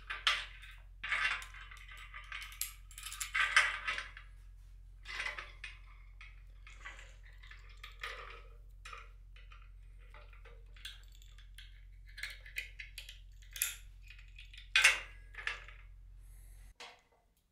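Steel chain jangling and clinking against the steel frame of a pulley tower as it is handled and hooked up. It comes in several rattling bursts at first, then scattered sharp clicks and a few louder clinks.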